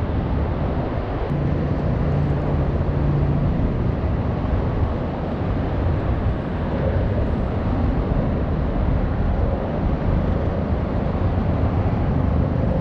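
Steady low rumble of traffic on a bridge, with an engine hum holding steady for a couple of seconds about a second in.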